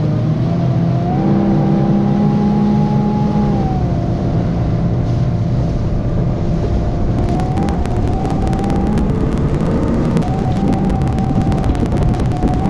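Small boat's outboard motor running at speed. Its pitch steps up about a second in and settles back down near four seconds. From about seven seconds in, a fast crackle joins as the hull runs over the chop.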